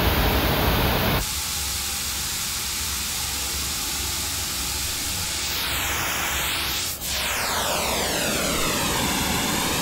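Pink noise from two speakers playing the same correlated signal, one of them polarity-reversed, picked up by a microphone that is moved between them. The hiss changes tone abruptly about a second in. From about six seconds, comb-filter notches sweep up and down through it as the microphone crosses the centre line, where the two speakers cancel and the level briefly dips.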